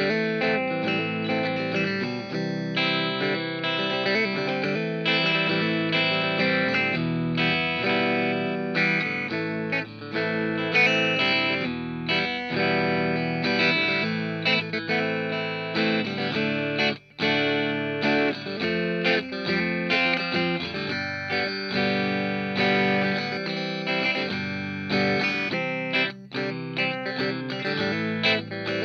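PRS S2 Vela electric guitar, both pickups with the bridge coil split, played through a Hotone Britwind pedal amp into a guitar cab and picked up by an ART AR5 active ribbon microphone. It plays a continuous run of picked notes and chords that stops for a moment about seventeen seconds in.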